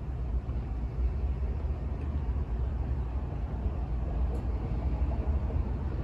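Steady low rumble with a faint hiss over it, even throughout with no distinct events.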